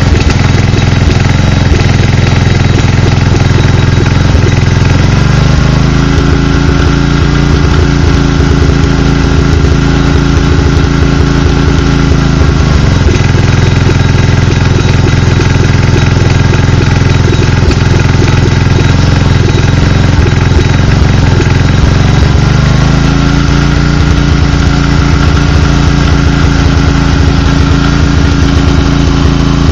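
Makita G3500R generator's four-stroke engine running loud and uneven. Its pitch rises about five seconds in, drops back around thirteen seconds and rises again near twenty-two seconds. This is rough running after years of standing, which the owner puts down to a carburettor that needs adjusting.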